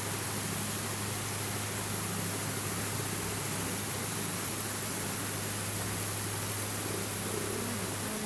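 A steady low hum under a constant hiss.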